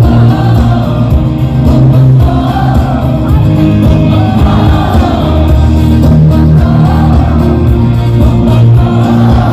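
Loud live band music with a singing voice carrying a wavering melody over a heavy, sustained bass.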